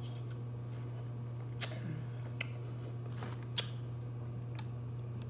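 A spoon clinking against a tall drinking glass while scooping from it: three sharp clicks over a steady low hum.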